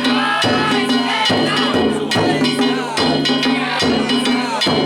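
Danjiri festival music: a drum and small metal gongs (kane) struck in a steady repeating rhythm, with the calls and voices of the crowd pulling the cart.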